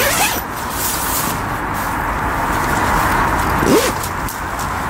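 Nylon fabric of a Helsport Gimle tent rustling, with short zipper-like strokes, as its inner door panel is handled and fastened. Steady road traffic noise runs underneath.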